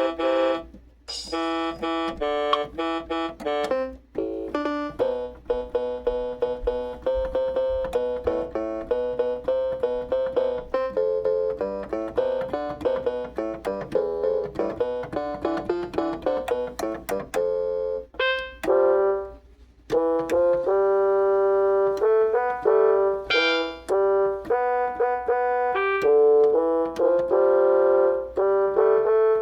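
Keyboard instrument with a piano sound playing fast runs of short notes, breaking off briefly twice, then moving to longer held chords in the last third.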